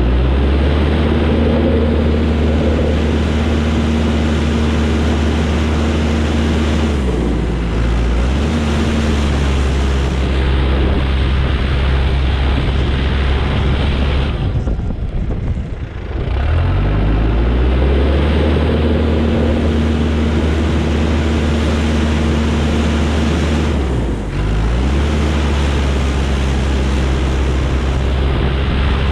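Heavy-equipment diesel engine running steadily while plowing deep snow. Three times, about 7, 15 and 24 seconds in, its pitch and level sag briefly and then climb back; the middle dip is the deepest.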